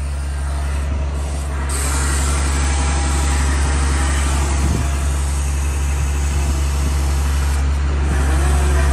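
International 4400 bucket truck's diesel engine running steadily with a strong low hum, powering the hydraulics as the Terex Hi-Ranger boom is rotated from the lower control levers. The sound grows a little louder and fuller about two seconds in.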